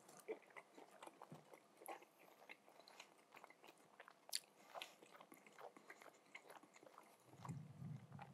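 Faint mouth sounds of a man chewing a mouthful of grilled chicken, with soft scattered clicks, and a low hum near the end.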